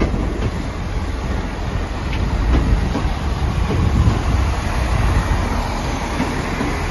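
Two coupled Class 165 diesel multiple units running slowly into the station past the platform: a steady low diesel rumble, with a few wheel clicks over the rail joints partway through.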